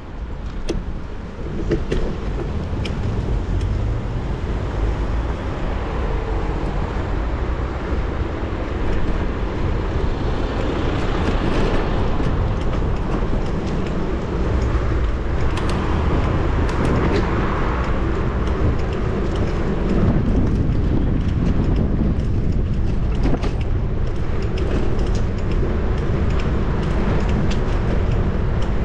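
City street traffic heard from a moving bicycle: cars passing, with a steady low rumble of wind and road noise on a GoPro action camera's microphone and scattered small clicks. It gets a little louder after about eight seconds.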